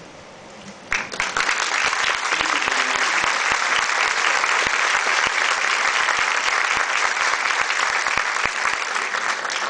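Audience applauding, starting about a second in and easing off slightly near the end.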